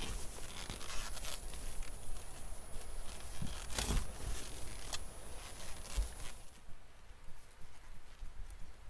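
Short-handled spade digging into forest soil: irregular scrapes and crunches as the blade cuts in and lifts dirt, with a sharp strike about four seconds in. The sound drops away after about six and a half seconds.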